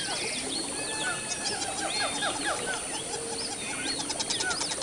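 A chorus of several birds calling at once: overlapping short whistles and chirps, with fast runs of repeated notes.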